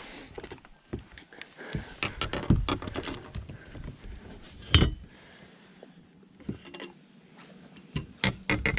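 Irregular knocks, thumps and rustling clatter as a landed northern snakehead is handled in a landing net on a boat deck, with one sharp loud thump about halfway through.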